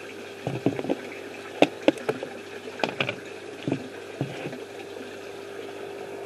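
Steady hum of an aquaponics pump, with a scatter of light knocks and clicks during the first few seconds.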